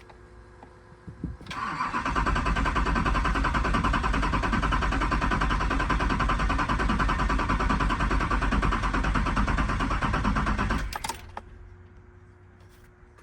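A freshly rebuilt LBZ Duramax 6.6-litre V8 turbo-diesel being turned over by a new starter motor. It cranks in a fast, even rhythm for about nine seconds without firing, then stops abruptly.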